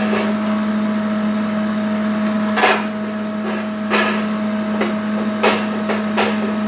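Thin 18-gauge sheet metal being pressed and bent by hand on the slats of a plasma cutting table, giving about five short metallic knocks and pops over a few seconds. A steady machine hum runs underneath.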